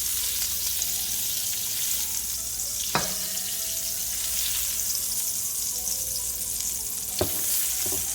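Shrimp frying in oil in a wok with a steady sizzle, stirred, with a utensil knocking against the wok twice.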